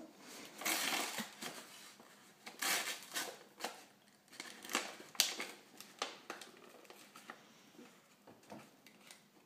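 Brown paper gift wrapping crinkling and rustling in a toddler's hands, in a string of short bursts as he fumbles at it without tearing it open.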